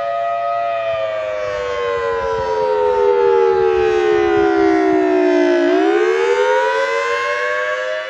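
Federal Signal Thunderbolt 1000T tornado siren sounding its two-tone chord for a monthly test. The pitch holds briefly, slides down for about five seconds, then climbs back up quickly near the end, and it is loudest in the middle.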